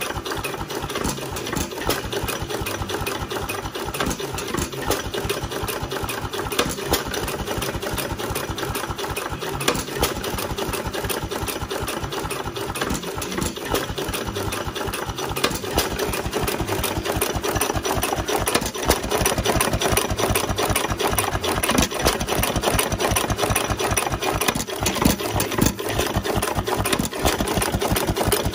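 1½ horsepower Novo hit-and-miss stationary engine running: a rapid, steady mechanical clatter with a louder knock every second or few.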